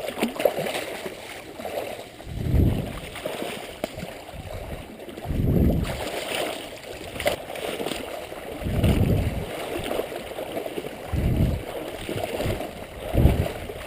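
Water sloshing and gurgling in slow surges about every two to three seconds, as of a person wading through swamp water.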